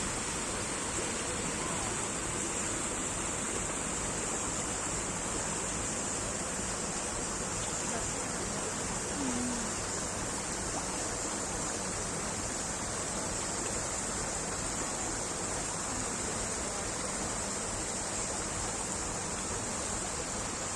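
Steady rushing noise with a constant high hiss, unchanging throughout.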